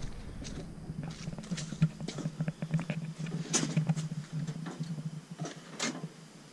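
Scattered light knocks, clicks and rustles of old car parts being handled inside a small enclosed cargo trailer, over a faint steady low hum.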